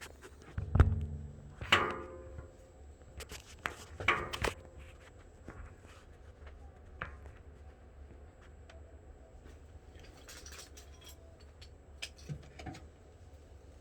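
Hand tools and small metal parts being handled and set down. A low thump about a second in, a knock that rings briefly just under 2 s in, a few sharp clicks around 4 s, and light ticking later on.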